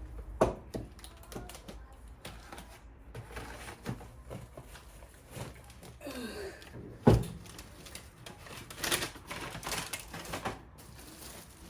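Irregular clicks and knocks of things being handled, with a louder knock about half a second in and another about seven seconds in, and a short patch of rustling near the end.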